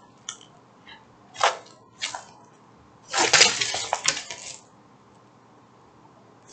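Clear plastic packaging of a diamond painting kit crinkling and rustling in several short bursts, the longest and loudest about three seconds in.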